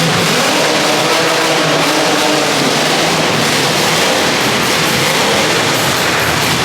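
Demolition derby cars' engines running and revving loudly in the arena.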